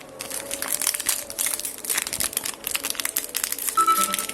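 Plastic packaging of an HP 680 ink cartridge being crinkled and pulled open by hand, a dense run of irregular crackles, with a brief high tone near the end.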